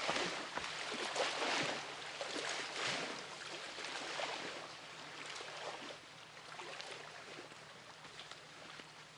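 Water splashing and gurgling, busiest and loudest over the first three seconds, then fading to a softer trickle.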